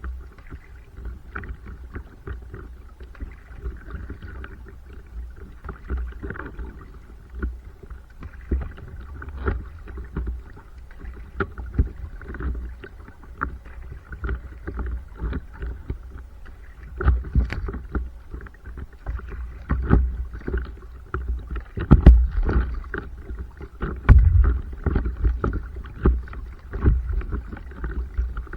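Water sloshing and splashing around a stand-up paddleboard as it is paddled: irregular small splashes and knocks over a steady low rumble, with several louder splashes or knocks in the second half.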